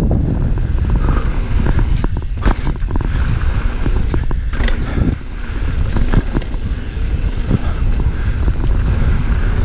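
Mountain bike riding fast down a dusty dirt trail: wind buffeting the camera microphone and tyres rolling on the dirt, with scattered sharp clacks and knocks from the bike over bumps.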